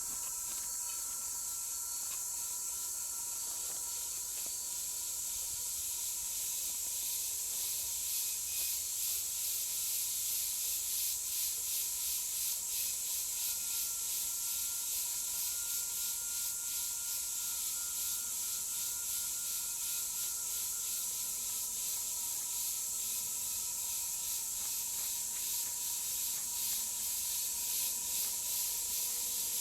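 Rhythmic scraping of a tool working in soil, about two strokes a second, over a steady high hiss and a faint steady tone.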